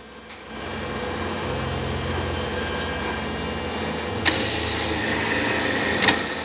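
Electric tapping machine for cutting internal threads running with a steady motor hum that picks back up after a brief dip at the start, with two sharp clicks about four and six seconds in.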